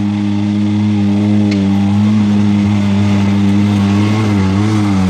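Polaris RZR XP 900 side-by-side's engine running steadily under load as it climbs a steep dirt trail, its pitch wavering slightly near the end.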